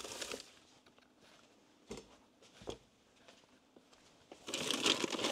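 Kitchen handling sounds: a short rustle, two light knocks about two and three seconds in, then steady crinkling of packaging from about four and a half seconds on as ingredients are taken out.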